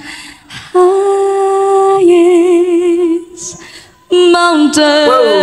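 Solo female voice singing a cappella, with no accompaniment: long held notes with a wavering vibrato, in two phrases with a short pause of about a second between them.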